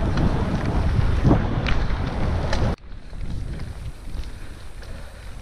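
Heavy wind buffeting on the microphone, with scattered knocks and rattles. It cuts off abruptly less than three seconds in, leaving a quieter, steady rustle.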